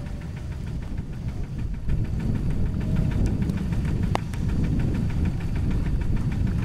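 Single-cylinder Kubota diesel engine of a walk-behind two-wheel tractor idling with a steady, even knock. There is one sharp click about four seconds in.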